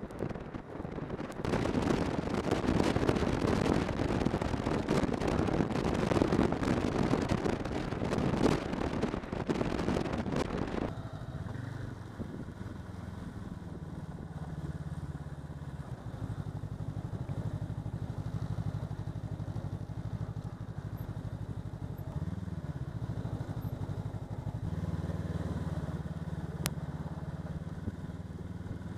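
Snowmobile engine and track running at speed, with a loud rush of wind on the microphone. About eleven seconds in the rush cuts off abruptly, leaving a steadier engine hum whose pitch steps up and down a few times.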